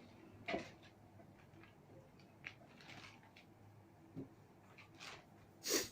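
Mostly quiet, broken by a few brief scuffs and clicks of handling, five in all, the loudest one near the end.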